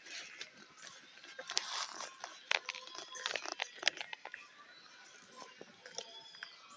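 Wood fire crackling, with irregular sharp pops and snaps that come thickest in the first half.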